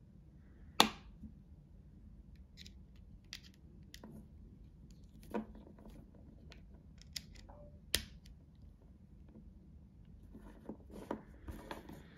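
Scattered clicks and taps of an AirPods Pro charging case and its charging cable being handled on a tabletop. The loudest is a sharp click about a second in, and near the end a cluster of small clicks and rustles comes as the cable's plug is pushed into the case.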